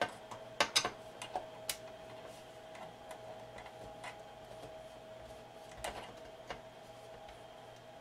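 Sharp metallic clicks and ticks of a screwdriver working the grounding-lug screws on a Denon AVR-S700W receiver's amplifier board, loosened and tightened several times to clean the ground contact. A quick cluster of clicks comes in the first two seconds and two more about six seconds in.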